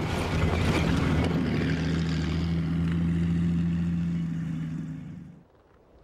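Tracked over-snow vehicle (a Spryte) passing close by: its engine running with a steady drone under a clatter of tracks. The sound fades away about four and a half seconds in and is gone a second later.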